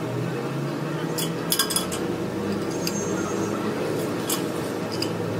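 Steel parts and hand tools clinking against each other, with a quick cluster of clinks about a second and a half in and a few single clinks later, over a steady machine hum.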